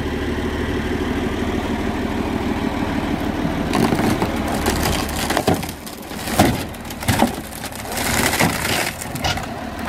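Massey Ferguson 2640 tractor's diesel engine running as the tractor rolls onto an old fibreglass boat hull. From about four seconds in, the hull cracks and splinters under the wheel in a series of sharp cracks and crunches.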